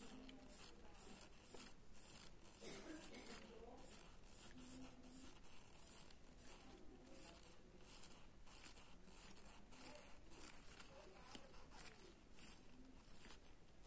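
Faint, quick pencil strokes scratching on drawing paper, a few strokes a second, as the lips are shaded.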